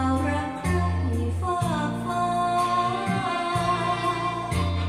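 Recorded music with a singing voice over a bass line that plays in repeated notes about a second long, reproduced by Bose 301 Series IV bookshelf speakers driven by a Luxman L-114A integrated amplifier.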